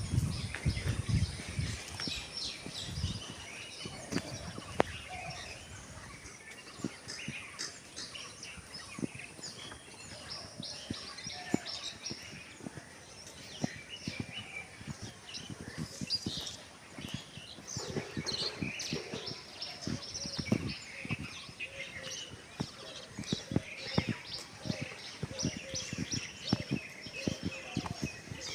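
Birds chirping and calling, with many short, high chirps overlapping through the whole stretch, over scattered light clicks and taps.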